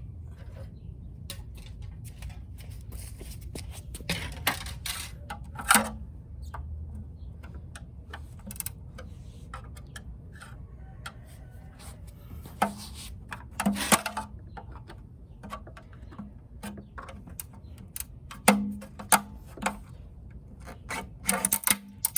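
Handling and prying at an old, sun-brittled plastic hubcap on a car wheel: scattered sharp clicks and plastic knocks, louder around five seconds in, around fourteen seconds and near the end, over a low steady rumble.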